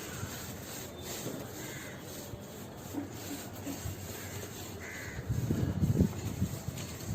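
Crows cawing a couple of times over steady outdoor background noise, with a louder low, rough noise in the last two seconds.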